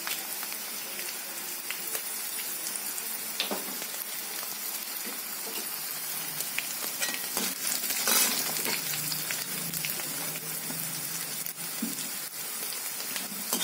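Hot oil sizzling in a kadai as a tempering of garlic, urad dal, cumin and dried red chillies fries, with a steel skimmer stirring and scraping through it. The sizzling is louder for a moment about eight seconds in.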